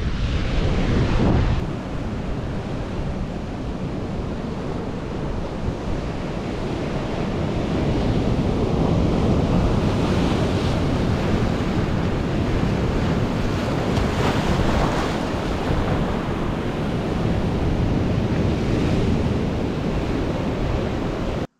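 Sea waves breaking and washing over a rocky shoreline, with wind buffeting the microphone. Louder surges come as waves crash about ten seconds in and again around fourteen seconds, and the sound cuts off suddenly at the end.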